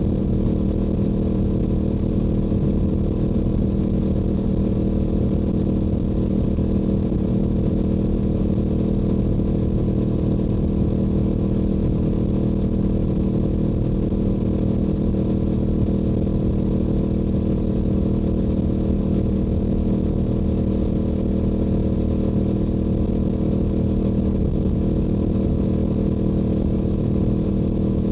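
Stock-exhaust Yamaha YZF-R7 parallel-twin engine holding a steady note while cruising at highway speed, with no shifts or revs.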